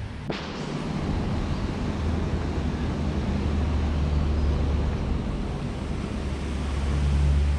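Wind rumbling on a phone's microphone outdoors, a steady low buffeting that swells toward the end, with one sharp click near the start.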